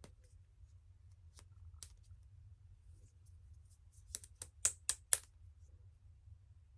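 Small, sharp clicks and taps of things being handled, faint and scattered at first, then a quick run of about five louder clicks a little past the middle, over a low steady hum.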